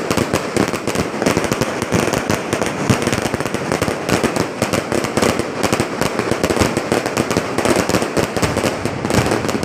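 Fireworks display going off in a dense, unbroken run of rapid bangs and crackles.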